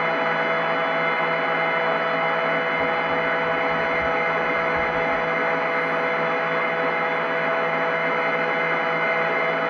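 Candy washing machine in its spin cycle, the drum and motor holding a steady high speed: a constant hum-and-whine made of several fixed tones over a rushing noise.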